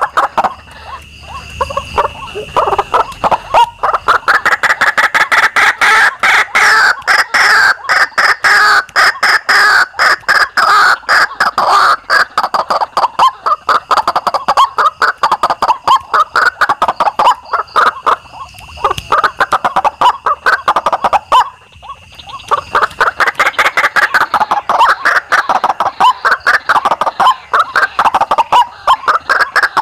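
White-breasted waterhens (ruak-ruak) calling as a lure: a loud, fast run of repeated croaking notes that goes on almost without pause, broken briefly twice. A thin steady high tone sounds underneath at times.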